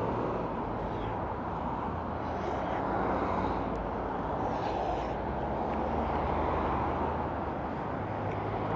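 Steady street traffic noise, a busy road's hum of cars, swelling gently now and then as vehicles pass.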